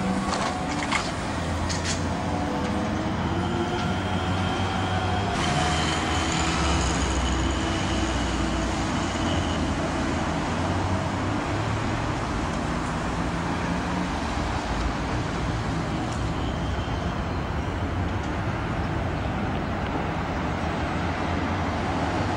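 Street traffic as an articulated Mercedes-Benz O405 GTZ trolleybus drives past, with a faint rising whine over the first few seconds, followed by a tram running round the turning loop; a thin high tone sounds for a few seconds about five seconds in.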